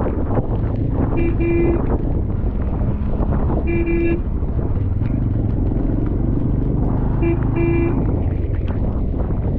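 A vehicle horn tooting in short beeps, two, then one, then two, over the steady low rumble of a vehicle on the move.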